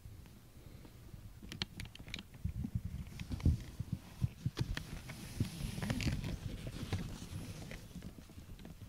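A cat rubbing and nuzzling against the camera, its fur brushing and bumping the microphone: uneven rustling and soft thumps with scattered sharp clicks.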